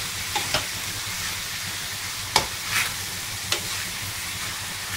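Shredded chicken masala sizzling as it is sautéed in a stainless steel frying pan, with a spatula stirring it and scraping or knocking against the pan about five times in short, sharp strokes.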